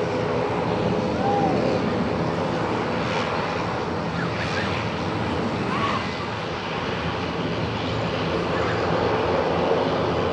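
Airbus C295M's twin Pratt & Whitney PW127G turboprop engines running steadily: an even drone of several steady tones over a broad rush.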